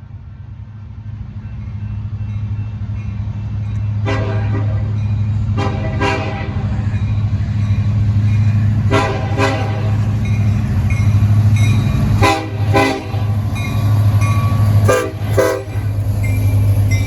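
Union Pacific 1111 locomotive sounding its air horn in a series of short blasts, about five soundings over the stretch, over the low, steady drone of its diesel engine. The drone grows louder over the first few seconds as the train nears.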